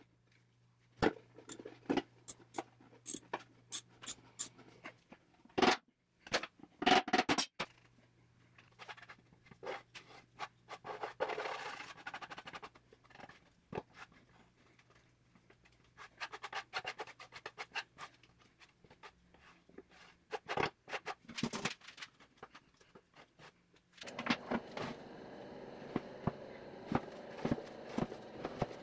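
Sharp clinks and knocks of metal box hardware being handled, then a metal scraper scraping old paint off the wooden box in repeated strokes. Near the end the scraping is of paint softened by chemical stripper.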